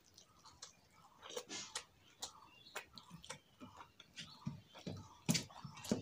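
Close-mic eating sounds: a mouthful of rice and fish curry being chewed with irregular wet mouth clicks and lip smacks. The clicks come thicker in the second half, with a few low thuds.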